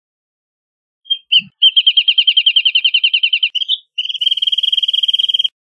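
Wrentit singing: two short lead-in notes, then a run of rapid, evenly repeated notes for about two seconds, and after a brief pause a faster trill lasting about a second and a half that stops sharply.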